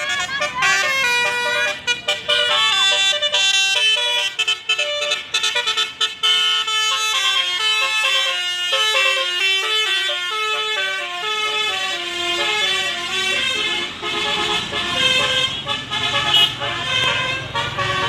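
Tour bus's Basuri telolet musical air horn playing a long run of quickly changing notes, several tones sounding together. From about 14 seconds in, a low engine rumble rises beneath it.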